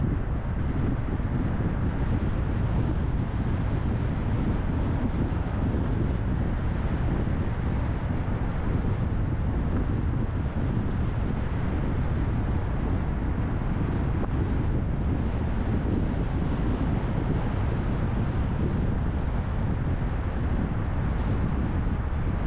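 A car driving: a steady low rumble of engine and road noise, unchanging throughout.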